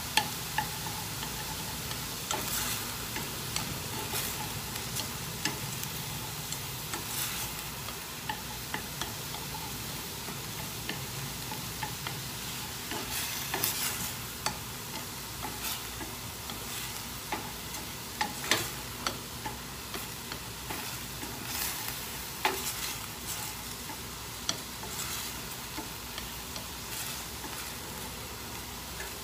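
Hand-chopped meat sizzling in oil in a stainless steel skillet as it is stir-fried until cooked through, with a steady hiss and frequent irregular clicks and scrapes of the utensil against the pan.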